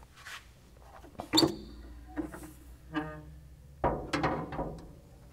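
Metal clanks and short squeaks from a car's steel hood being lifted and propped open. There is one sharp ringing clank about a second and a half in, two brief squeaks, and then a quick run of clanks near four seconds as the prop rod is set.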